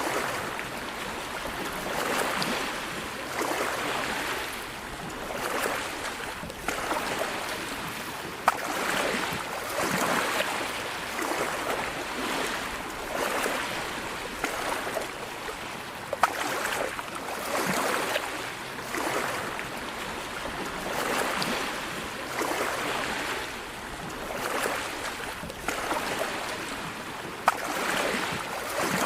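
Sea waves washing in on the shore, each surge swelling and falling away about every two seconds. Three brief sharp clicks stand out among them.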